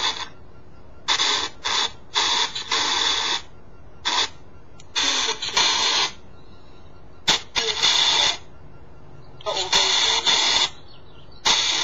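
Spirit box app playing through a phone's speaker: choppy bursts of static hiss, each from a fraction of a second to about a second long, with short quieter gaps between. A single sharp click comes about seven seconds in.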